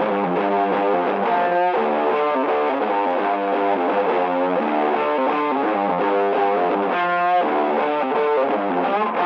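Background music: distorted electric guitar playing a riff at a steady level.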